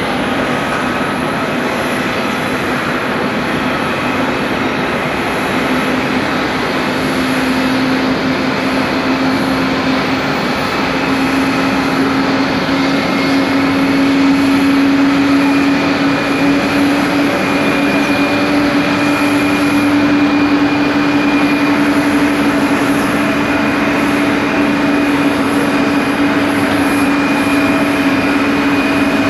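Airbus A340-600 jet engines roaring steadily as the airliner climbs away after takeoff, with a steady low hum underneath that grows stronger a few seconds in.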